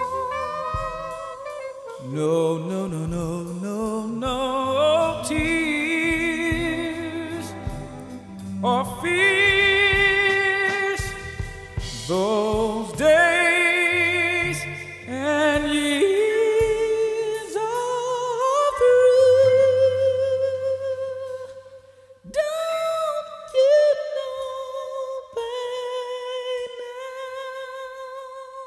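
Jazz recording: a wavering lead melody with wide vibrato and sliding pitches over low accompaniment, breaking off briefly near the end and then settling into a long held note that slowly fades.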